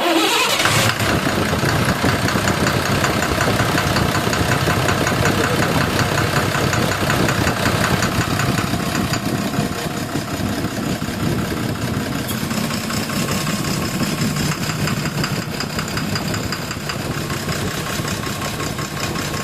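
12-M FE car engine starting and then idling with a fast, even knock in its running: the engine knocking fault under diagnosis.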